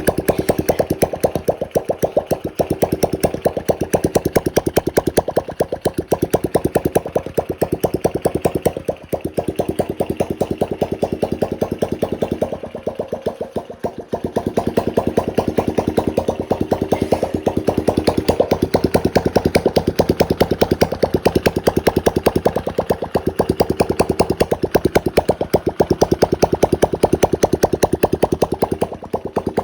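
Honda Blade 110 cc single-cylinder four-stroke motorcycle engine idling with a steady, even firing beat. It dips in loudness briefly twice, about a third of the way through and again near the middle, then settles back to the same idle.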